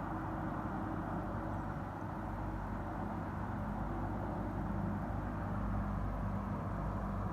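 A steady, low droning rumble with several faint held tones, swelling slightly about five to six seconds in: the sort of sky drone the uploader takes for a strange trumpet sound.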